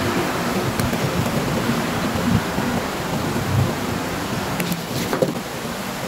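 Steady rushing noise, with a few light clicks about five seconds in from the plastic lure body being handled in a small bench vise.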